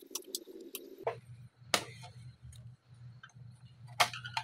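Clicks and ticks of plastic and metal laptop parts being handled during reassembly: a few small ticks as the motherboard is seated in the HP 2000's base, then two sharp clicks about two seconds apart as the palmrest top case is pressed into place, over a low steady hum.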